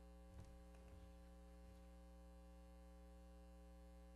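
Near silence with a steady electrical mains hum in the sound feed. There is one faint low thump about half a second in.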